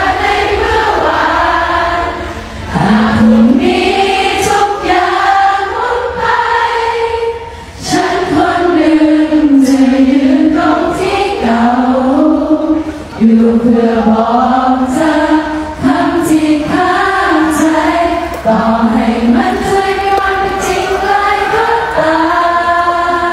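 Singing: a slow vocal song with long held notes, pausing briefly between phrases.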